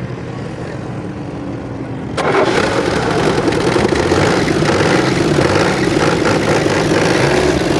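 A heavy diesel engine running, which rises suddenly to a much louder steady run about two seconds in.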